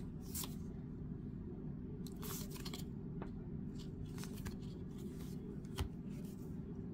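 Baseball trading cards being slid one by one through a stack by hand: faint, brief swishes of card stock rubbing on card stock, several scattered through, over a steady low hum.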